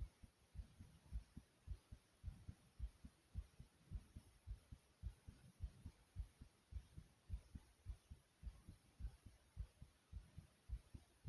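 A person's heart beating fast: low double thumps in a steady rhythm, a little under two beats a second.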